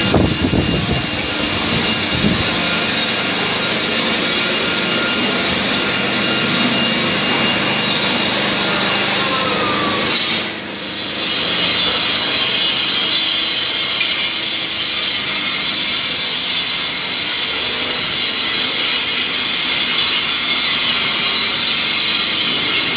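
Steady loud factory machinery noise, mostly a high hiss, with a short drop about ten seconds in before it comes back.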